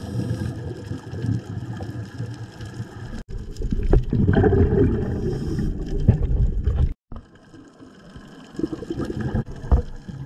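Muffled underwater noise on a scuba dive: a low rumble of water with bubbling from divers' regulators. It breaks off briefly about three seconds in, swells louder, then drops out again about seven seconds in and comes back quieter.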